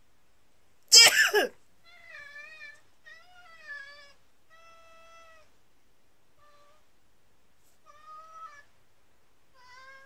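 A person sneezes once, loudly, about a second in, and the cat answers with six meows over the following seconds, some short and some drawn out: the cat's protest at the sneeze.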